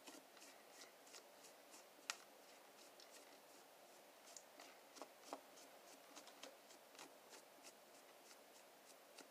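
Near silence with faint, scattered small clicks and squelches of slime being kneaded and mixed by hand.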